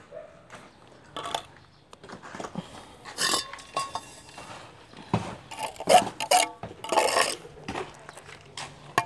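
Steel mason's trowel working mortar while hollow ceramic bricks are laid: irregular scrapes of the blade through wet mortar and sharp clinks of steel against brick and the metal wheelbarrow pan, busier in the second half.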